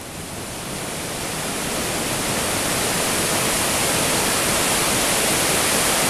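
Mountain waterfall cascading over rocks: a steady, even rush of falling water that grows louder over the first couple of seconds and then holds.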